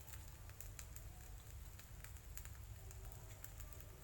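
Faint crackling and popping of oil frying under a pan of instant noodles on low heat.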